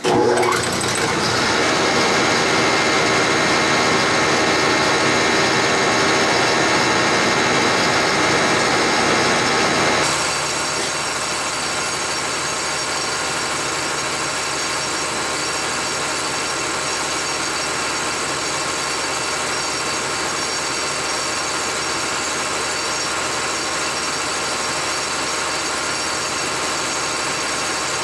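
Bacharach diesel injection pump test stand starting up and running a VE rotary injection pump fitted with PowerJet injectors, a steady mechanical buzz and whine during a fuel-flow test. It comes up quickly at the start, and about ten seconds in it drops to a somewhat quieter steady run.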